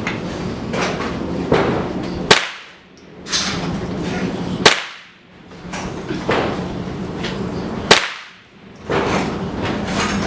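Three shots from a bolt-action Remington 700 rifle in .223 Remington, spaced about two and a half to three seconds apart. Fainter noise and small cracks run between them.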